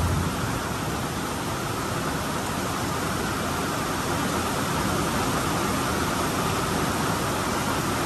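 Steady, even rushing noise of a rainstorm: heavy rain with wind.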